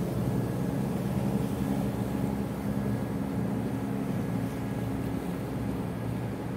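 Engine of a small harbour workboat running steadily as the boat passes close by and moves away: a low, even hum, growing a little fainter near the end.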